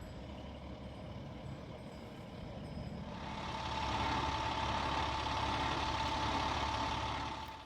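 A heavy engine running steadily with a low rumble. About three seconds in it grows louder and a steady high whine joins it. It cuts off suddenly at the end.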